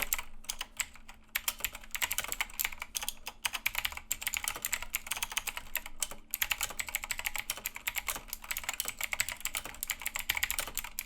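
Fast typing on a Razer BlackWidow Chroma mechanical keyboard with pudding keycaps: a dense, loud run of key clicks and clacks, broken by a few brief pauses.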